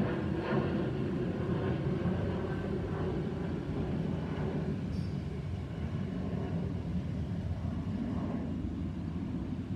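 Boeing 737-800's CFM56 jet engines passing overhead as a steady, deep rumble that slowly fades as the airliner moves away.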